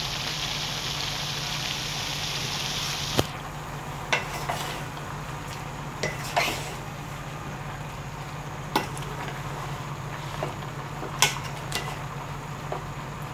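Vegetables sizzling in a large metal pot as they are stirred with a wooden spatula, the spatula knocking against the pot several times. A loud hiss for about the first three seconds drops away after a click, leaving a quieter sizzle over a low steady hum.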